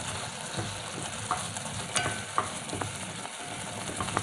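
Boiling rice being stirred with a utensil in an aluminium pot: a steady bubbling hiss with scattered clicks and scrapes of the utensil against the pot.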